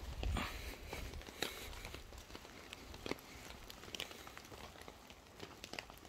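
Faint crinkling and rustling, with scattered small clicks and a brief louder rustle near the start.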